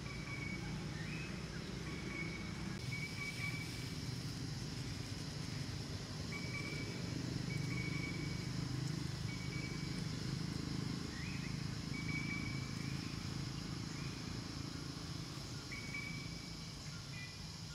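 Tropical forest ambience: a steady high insect drone with short, repeated whistled bird calls over a low, continuous rumble.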